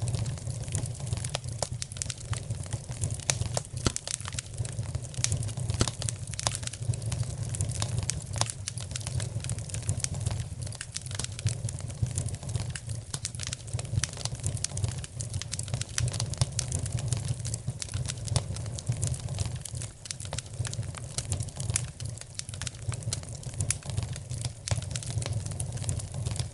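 Fire crackling in a fireplace: many small, irregular sharp pops over a steady low rumble.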